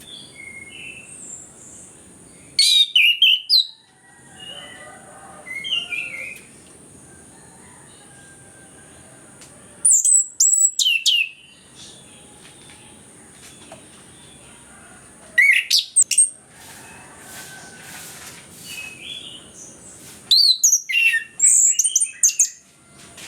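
Chestnut-capped thrush (anis kembang) singing: four loud, rapid phrases of quick sweeping high notes, each one to two seconds long and several seconds apart, with softer twittering between them.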